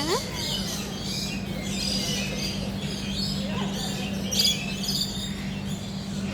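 A flock of lories and lorikeets calling, many short, high chirps and squeaky calls overlapping throughout, over a steady low hum.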